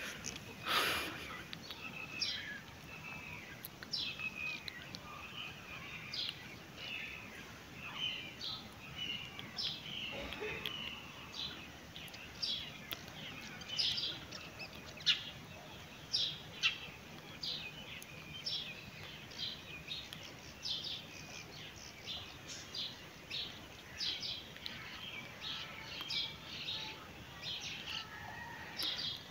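Small songbirds chirping: a steady run of short, high chirps, several a second, over light outdoor background noise.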